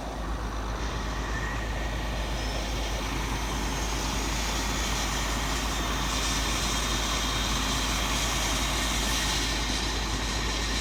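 Steady din of heavy harvest machinery running: a self-propelled forage harvester chopping corn for silage, with a low rumble and a faint high whine that rises slightly a couple of seconds in.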